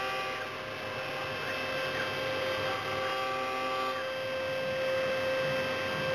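CNC milling machine running while cutting a block of tooling board: a steady motor whine with several other tones that come and go, over an even hiss.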